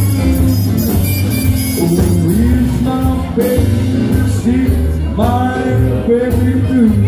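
A small jump-blues band playing live, with a walking bass and drums under a lead melody that bends up and down in pitch.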